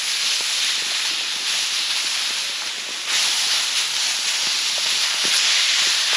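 Backstrap meat sizzling on a hot barbecue plate over a campfire, a dense steady hiss with scattered small pops. The sizzle grows louder about three seconds in.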